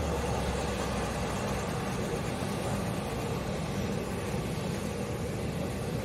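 Jet airliner engines running at taxi power, a steady, even noise with no breaks.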